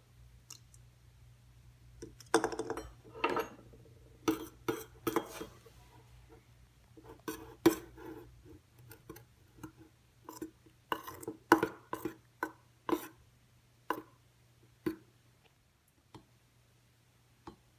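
A utensil clinking and tapping irregularly against a container while slime ingredients are mixed, over a faint steady low hum.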